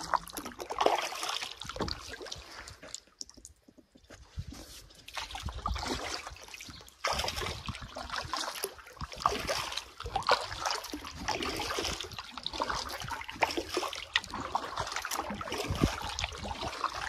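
Canoe paddle strokes in calm water: the blade dips and pulls with small splashes and water trickling off it, with a short lull about three seconds in.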